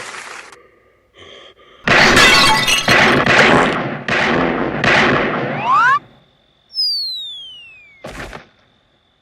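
Comedy sound effects: a string of loud crashing, breaking-glass sounds, then a falling whistle that drops in pitch for about a second, ending in a short thud.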